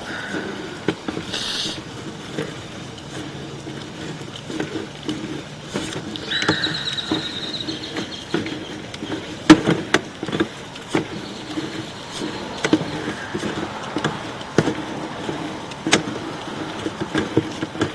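Sewer inspection camera's push cable being fed through a cast iron drain line: irregular clicks, knocks and scraping, with a brief high squeal about six seconds in.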